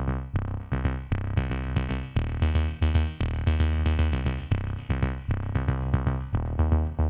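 Electronic background music with a steady drum-machine beat and synthesizer notes.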